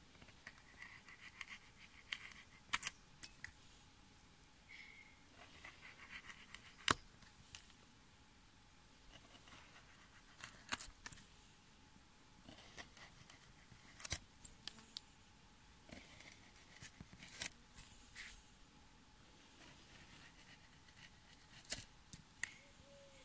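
A wide semicircular carving gouge pushed by hand through a strip of wood, scraping as it cuts, with sharp clicks as the chips break free. The clicks come in small clusters every three to four seconds, one cut after another.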